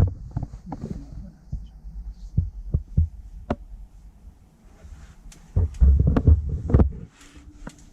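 Irregular low thumps and sharp clicks over a steady low rumble, with a louder run of thumps near the end, typical of a handheld camera's microphone being knocked and buffeted while walking outdoors.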